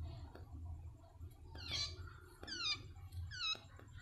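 Prenjak (prinia) held in the hand giving a series of four sharp calls, each falling steeply in pitch, about one every 0.7 s beginning a little before halfway, in reaction to a hand being thrust at it. A few faint taps come between the calls.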